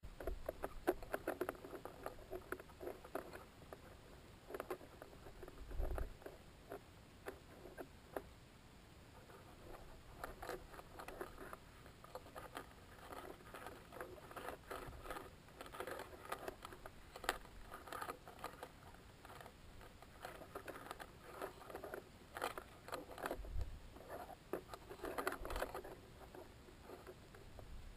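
Irregular crackling, scratching and tapping from inside the balloon payload, picked up by its onboard camera's microphone as the housing shifts and rubs. A few dull low thumps come about six seconds in and again near the end.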